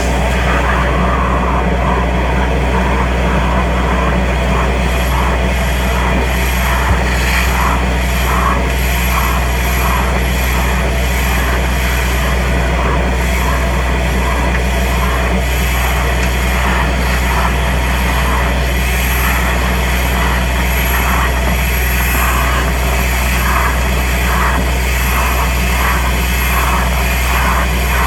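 Compact soil vacuum excavator running, a steady low drone with a faint high whine. Irregular rattling ticks sound over it throughout.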